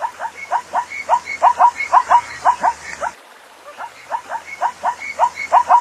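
Zebra calling: a rapid train of short, barking yips, about four or five a second. The call breaks off about three seconds in and starts again after a short pause.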